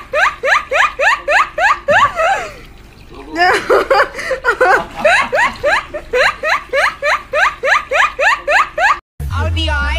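A person laughing hard in rapid, high-pitched rising squeals, about four or five a second, with a short break around three seconds in. Near the end it cuts suddenly to electronic dance music with a heavy beat.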